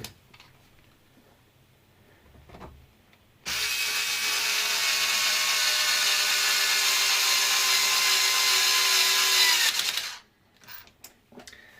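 A small electric drill-driver runs steadily for about six seconds, its pitch sagging slightly as it drives a screw home. Before it there are a few faint handling clicks.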